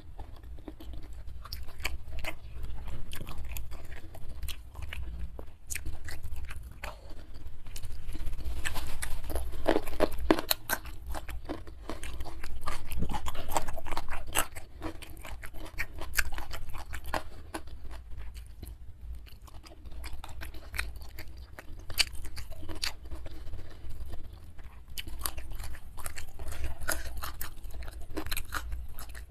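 Close-miked chewing and crunching of a person eating a rice meal with crisp raw vegetables and petai, with louder, busier spells of crunching about a third of the way in and again just before the halfway point.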